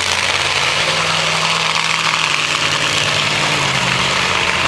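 Monster truck engine running steadily, without revving, under a loud even hiss; its pitch sags slightly in the second half.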